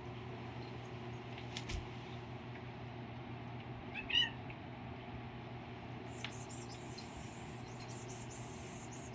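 A domestic cat gives one short, high meow about four seconds in, over a steady low hum, with a few faint handling rustles and clicks.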